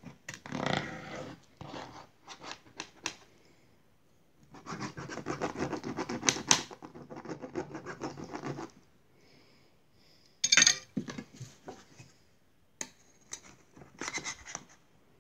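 A knife cutting through a baked pizza and scraping along the metal baking tray in rough, scratchy strokes, the longest run lasting about four seconds. Near the end a metal spatula scrapes and clicks against the tray as a piece is lifted.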